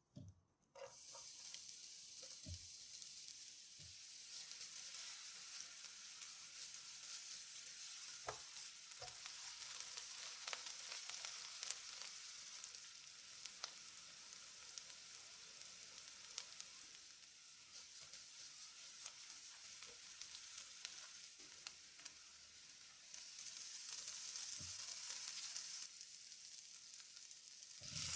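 Finely chopped onion frying in hot oil in a non-stick pan: a steady sizzle that starts suddenly about a second in as the onion goes into the oil, with small clicks and taps of stirring, and a louder stretch of sizzling near the end.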